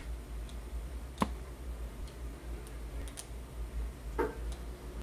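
A few light clicks of a metal ornament cap against the glass neck of a small ornament as it is fitted on, the sharpest about a second in, over a steady low hum.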